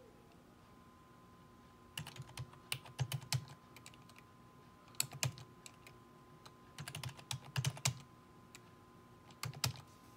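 Keystrokes on a computer keyboard's number pad, typed in four short bursts of clicks over a faint steady hum.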